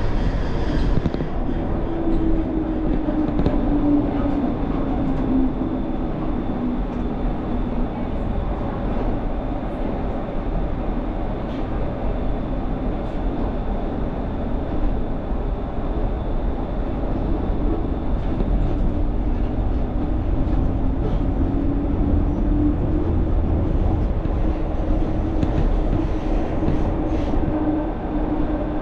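Low-floor light rail tram running on its tracks: a steady rumble of wheels on rail with a motor hum that drops in pitch a few seconds in and rises again over the second half as the tram changes speed.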